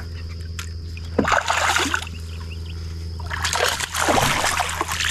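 A hooked largemouth bass thrashing and splashing at the surface beside a kayak as it is landed with a net, in two bouts: about a second in, then again from about three and a half seconds in.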